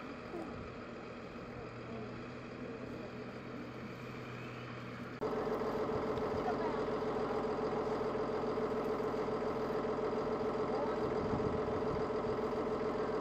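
Case IH Puma tractor's diesel engine running steadily. About five seconds in it turns abruptly louder and closer, with a strong steady hum.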